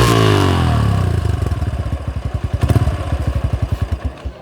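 Yamaha YBR 125's single-cylinder four-stroke engine running through an aftermarket exhaust, revved and then dropping back. As the revs fall, the separate exhaust beats slow and become plainly distinct before it settles toward idle near the end.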